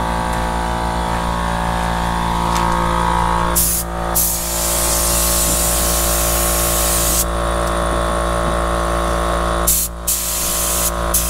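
Compressed-air paint spray gun hissing as the trigger is pulled, with one long spray of about three seconds in the middle and shorter ones near the end. A steady machine hum runs underneath.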